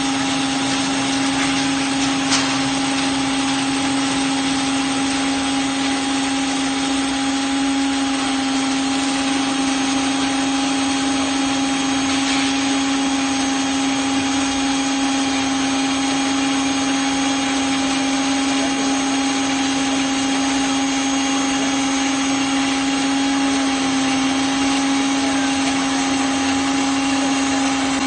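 Electric motor of a stainless-steel working machine running steadily, a constant hum with a faint high whine over it and one small click about two seconds in.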